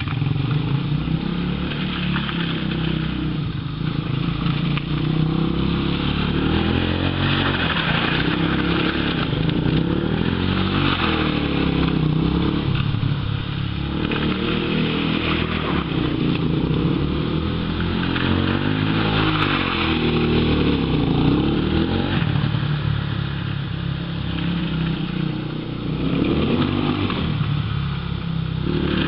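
Quad bike (ATV) engine running under load, its pitch rising and falling again and again as the rider accelerates and eases off through turns.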